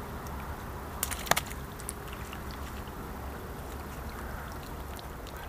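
A landing net holding a caught fish being dipped and lifted in shallow river water: light splashing and dripping, with a brief sharp clatter about a second in, the loudest sound.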